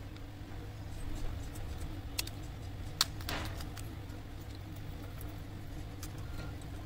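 Small clicks and taps as camera modules and the motherboard of a Redmi Note 10 Pro are handled and pressed into place in the phone's frame, over a steady low hum. The sharpest click comes about three seconds in, followed by a brief rattle.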